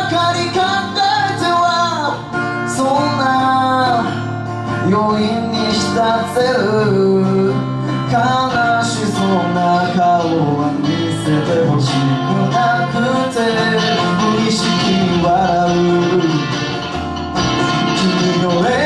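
Live band music: a man singing a melody over a strummed acoustic guitar and two electric guitars playing along.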